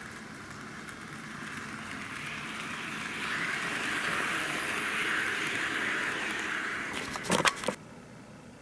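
N-gauge model train running along the track, its motor and wheel noise growing louder as it comes close. Near the end comes a quick burst of loud clicks, and then the sound drops away suddenly.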